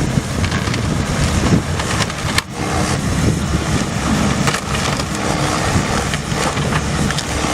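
Engine-driven wood-processing machine running steadily, with several sharp knocks and cracks as it works the wood.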